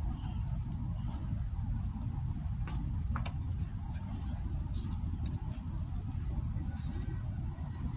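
Outdoor ambience: a steady low rumble with short, high chirps scattered through it and a few faint clicks.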